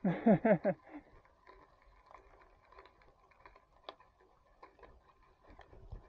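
A brief loud pitched call of a few quick falling notes right at the start. After it comes the faint crunch and scattered clicking of bicycle tyres rolling over a leaf-strewn dirt path.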